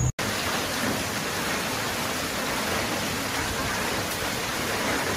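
Hail and heavy rain falling hard onto the ground, a steady, dense patter.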